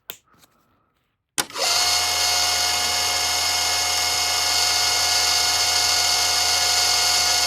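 A small motorised tool switches on with a click about a second and a half in, then runs steadily with a constant whine and hiss.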